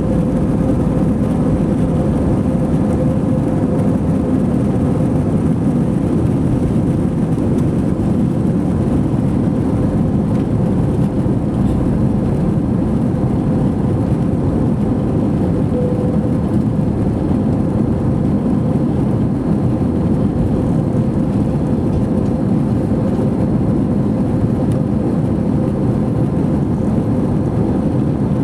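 Steady cabin noise of an Airbus A321 in flight: an even rush of engine and airflow noise with a faint steady hum.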